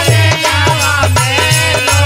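Devi geet devotional song music: a steady drum beat with a melody over it.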